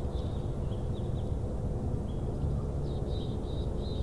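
Steady low outdoor rumble on the nest-cam microphone, with faint short high chirps of small birds scattered through it, a quick run of them about three seconds in.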